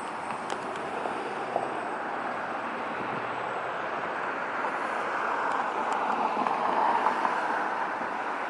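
Street traffic noise, a steady hiss of passing vehicles that swells as one passes close about seven seconds in, then eases.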